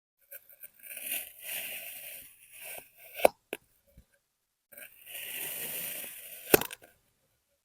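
Kinetic sand being cut with a blade, a soft crunching scrape, in two strokes, each ending in a sharp click.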